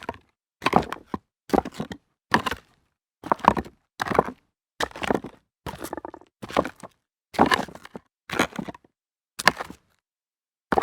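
Footsteps walking at a steady pace, one short crunchy step about every 0.7 seconds; they pause for about a second near the end, then start again.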